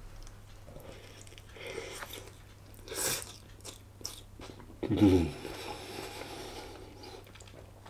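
A man biting into and chewing a chilli hot dog in a soft bun, with quiet mouth and chewing sounds. About five seconds in he makes a brief voiced sound through his full mouth.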